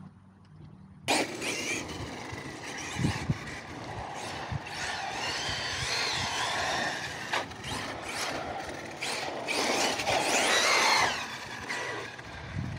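Arrma Mojave 6S RC truck driving on asphalt: its brushless motor whines, rising and falling with the throttle, over a dense rushing noise of tyres and air. The sound starts suddenly about a second in.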